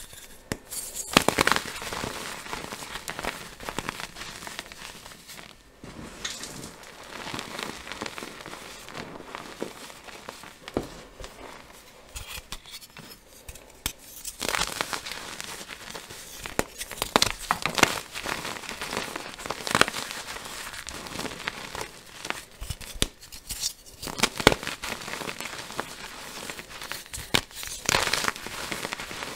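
Blocks of dyed gym chalk snapped and crushed by hand: a dry crunching and crackling as the chalk crumbles into powder, broken by sharp snaps as blocks break apart.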